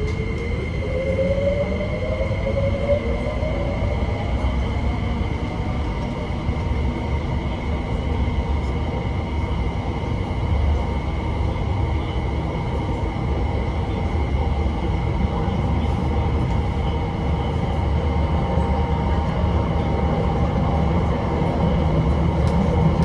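Interior sound of an MTR SP1900 electric train under way. The traction motor whine rises in pitch over the first five seconds or so as the train accelerates, then holds steady. Under it is a constant rumble of wheels on track and a thin high tone.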